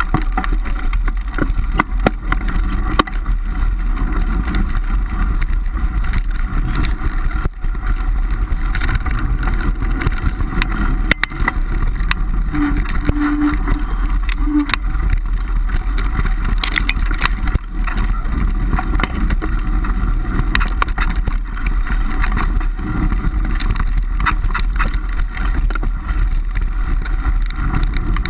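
Bicycle riding fast over a dirt trail: a steady rush of wind buffeting the microphone and a rumble from the tyres, with frequent rattling knocks from the rough ground. A few short squeaks come about halfway through.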